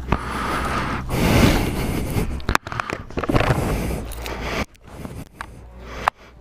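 Rustling and scraping of clothing and handling close to the microphone, with scattered clicks, as the rider climbs off the motorcycle. A steady low rumble underneath drops out abruptly near the end.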